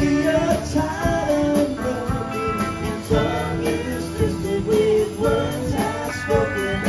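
Live rock band playing: electric guitars, keyboards, bass and drum kit, with a melody line held and moving over regular drum hits.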